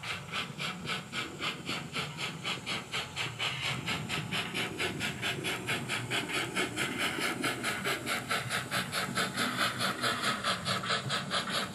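Simulated steam-locomotive exhaust from an ESU LokSound V4.0 sound decoder in an Oxford Rail Adams Radial 4-4-2T 00-gauge model, played through the model's small speaker: a fast, even chuffing, several beats a second, that grows a little louder as the engine runs past.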